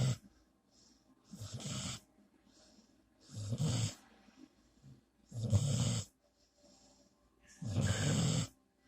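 Loud snoring in a slow, even rhythm: four long snores, about one every two seconds, with quiet between them.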